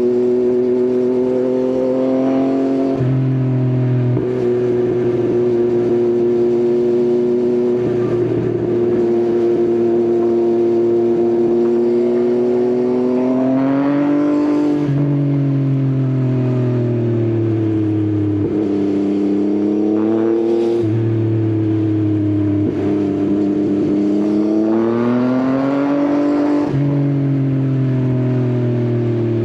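Yamaha XSR900's three-cylinder engine through an Akrapovič exhaust, running at a steady cruise with the revs rising and falling a few times: about halfway through, briefly a little later, and again near the end.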